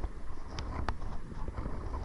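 Kayak paddling: a few sharp knocks and water slaps from the paddle and hull, over a low rumble of wind on the microphone.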